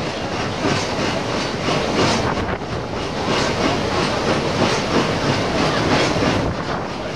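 Paddle steamer under way: its steam engine and paddle wheels running with a steady rhythmic beat over the churn of water.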